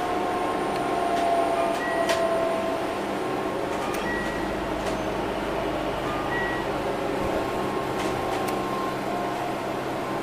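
Steady running noise inside an electric commuter train's cab area. A faint whine shifts in pitch over the first few seconds, and a few brief high beeps and light clicks sound over the rumble.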